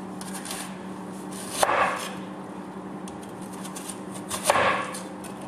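Large kitchen knife slicing through a whole onion on a cutting board, cutting it into rings: two cuts, one about a second and a half in and one near the end.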